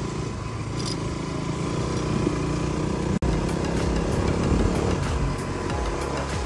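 Motorcycle engine running at riding speed, with the steady rush of wind over the bike. The sound cuts out for an instant about three seconds in.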